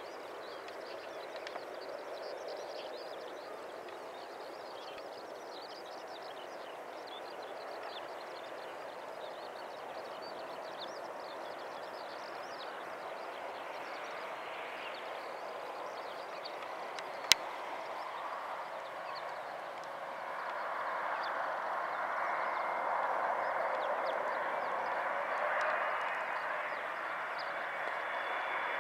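Jet noise of an approaching Boeing 777 on final approach with gear down: a steady rushing that grows louder over the last third, with a high whine coming in near the end. A single sharp click a little past halfway.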